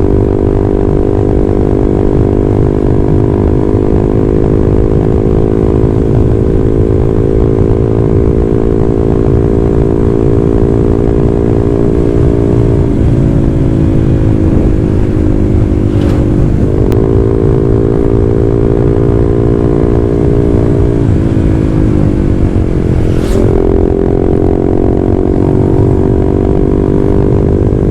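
Honda CB150R single-cylinder engine running through an aftermarket WRX GP6 silencer and Blue Moon stainless header, with a deep, bassy exhaust note while riding at steady speed. The pitch dips and climbs back four times, as with gear changes or throttle lifts, over a steady low rumble of wind on the microphone.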